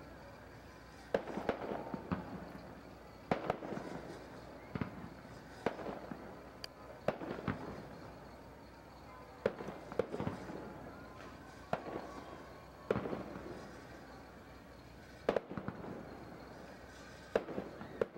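Aerial fireworks bursting: sharp bangs at irregular intervals of one to two seconds, each trailing off in echo.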